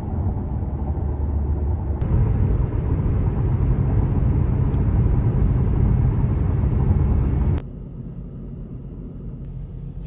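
Steady low road and engine rumble inside a moving car's cabin, louder while driving on the highway and dropping suddenly about seven and a half seconds in.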